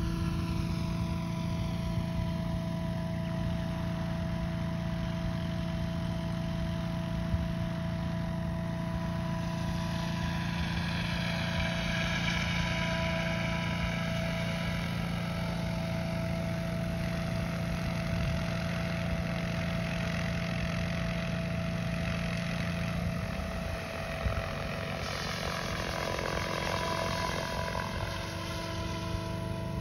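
Radio-controlled F3C model helicopter flying a hover routine: a steady rotor hum with a high whine over it. The tone wavers for a few seconds near the end, then steadies again.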